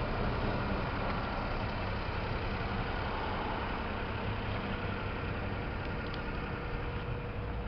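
Daihatsu Hijet mini truck's small engine idling steadily.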